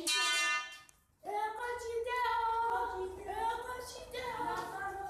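A voice singing long held notes that glide between pitches, breaking off briefly about a second in.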